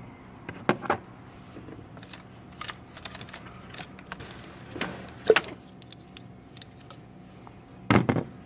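Irregular clicks and knocks of hand work on a BMW 760's V12 engine: plastic ignition coils being pried out with a small screwdriver. Two louder knocks come about five and eight seconds in.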